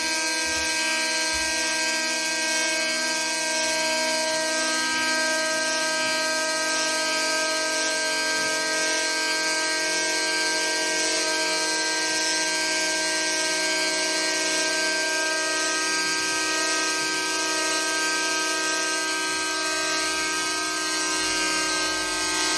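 Amplified, prepared hurdy-gurdy playing a steady buzzing drone of many held tones over a strong hiss, unchanging in level.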